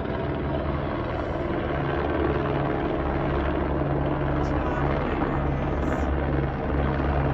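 Search and rescue helicopter flying in, its rotor and engine making a steady low drone that grows a little louder as it comes closer.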